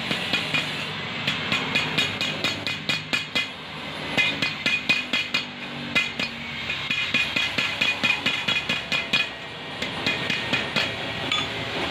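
Hammer rapidly tapping on steel, about five ringing metallic strikes a second, in several runs with short pauses between them.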